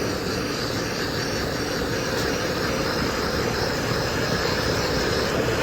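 Garden hose spraying water onto an air conditioner's outdoor condenser coil to wash the dirt out, over the steady running of the unit's condenser fan and compressor.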